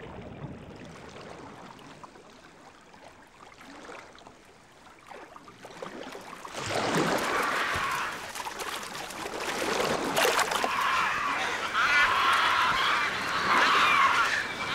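Faint underwater ambience. About six and a half seconds in it gives way to loud splashing and wing noise with seabird calls as a flock of brown pelicans dives and flies low over the sea.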